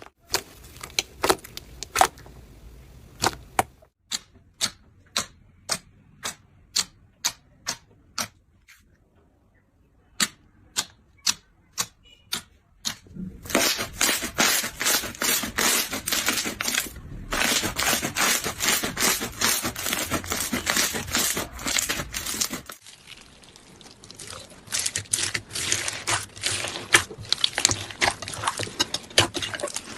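Slime being pressed and squished by hand, making crisp clicking pops: separate pops about one or two a second at first, then a dense, rapid crackling from a little before halfway on.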